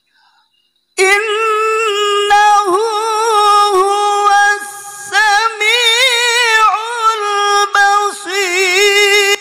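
A man's voice reciting the Quran in melodic tarannum style into a microphone, drawing out long, ornamented notes with a wavering vibrato. The voice starts about a second in, after a silent gap.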